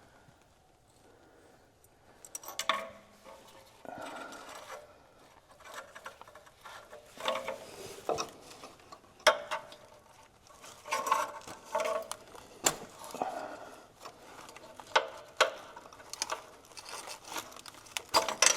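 Irregular clicks, scrapes and rubbing of hands twisting and tugging on a rubber spark plug wire boot that is stuck fast on its plug. The engine is off.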